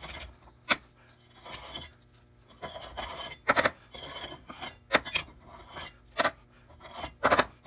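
Metal spoon scraping and skimming crusty dross off molten zinc in a metal crucible: a string of rasping scrapes broken by several sharp metallic clinks.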